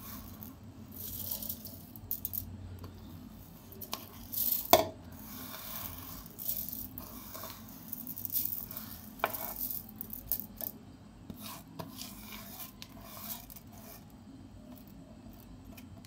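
Soaked raw rice being scraped by hand off a stainless steel plate into a mixer jar: wet grains rattling and scraping against the steel in irregular bursts. One sharp knock of metal about five seconds in.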